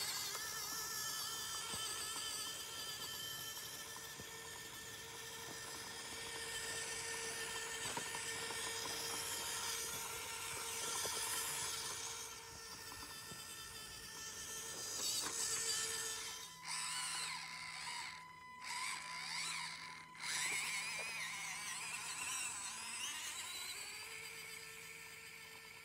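Whine of an Axial SCX24 RC crawler's small electric motor and gears as it drives, the pitch wavering slightly with the throttle. The sound drops away briefly a few times about two-thirds of the way through.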